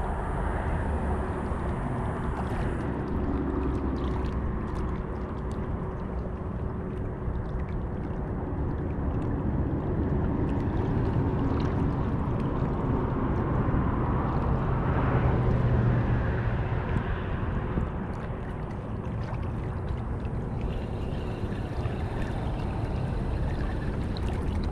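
Steady wind and water noise outdoors over open water, swelling a little about halfway through.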